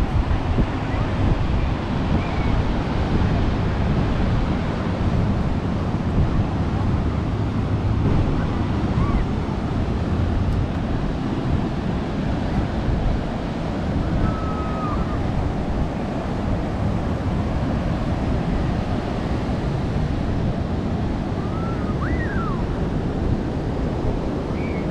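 Ocean surf washing steadily below a pier, with wind buffeting the microphone. A few faint, short high calls come through now and then.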